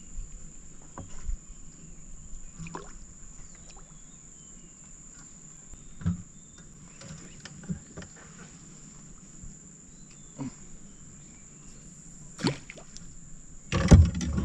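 A steady high insect drone over quiet river ambience, with scattered light knocks and handling sounds from gear in a small fishing boat, and a louder bump and clatter near the end.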